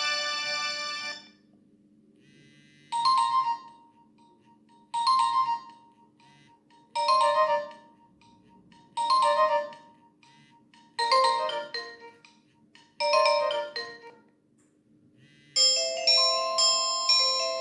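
Nokia X1-01 mobile phone playing its ringtones through its small loudspeaker. One tone ends about a second in, then a short chime phrase repeats six times, about every two seconds, and a new ringtone with a quick run of bell-like notes starts near the end.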